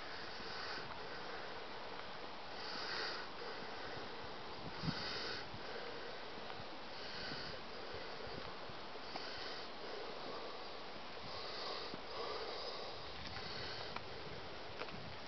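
A person breathing and sniffing close to the microphone, short noisy puffs about every two seconds, over a faint steady background. A single sharp knock about five seconds in, like a bump on the handheld camera.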